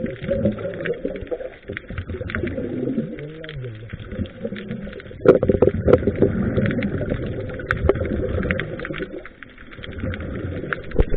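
Underwater breathing through a scuba regulator, gurgling and cooing. A louder rush of exhaled bubbles starts about halfway through and lasts some four seconds.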